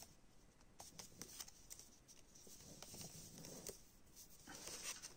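Faint rustling and light ticks of paper as two glued paper discs are handled, lined up and pressed together by hand.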